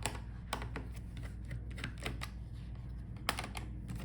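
Irregular light clicks and taps of a Phillips screwdriver working the bottom-case screws of a Dell Latitude 5420 laptop, over a steady low hum.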